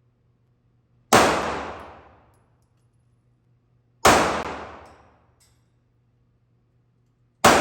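Three pistol shots a few seconds apart, each a sharp crack followed by a long echoing decay in the range.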